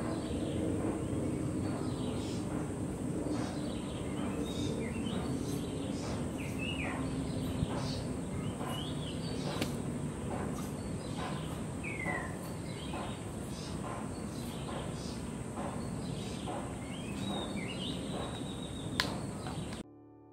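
Outdoor garden ambience: scattered short bird chirps, some sliding down in pitch, over a steady high-pitched whine. The sound cuts off near the end.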